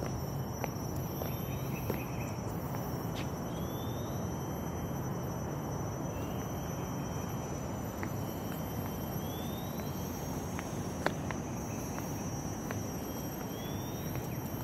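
Outdoor ambience: a steady high-pitched drone and a short rising chirp that repeats every few seconds, over a steady low rumble, with a few faint clicks.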